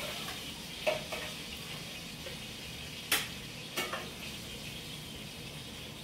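Oil sizzling steadily in a frying pan on a gas stove, with three sharp knocks of a metal spatula against the cookware, the loudest about three seconds in.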